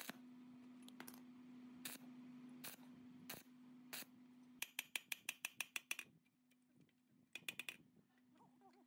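Faint steady low hum with a sharp click about every second, then a fast run of about a dozen light, ringing metal taps and a shorter run a second or so later: a chipping hammer knocking slag off a fresh stick weld on steel plate.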